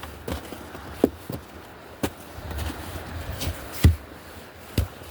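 Footsteps of a hiker walking on a trail: a sharp step or knock roughly every second, one louder than the rest about four seconds in.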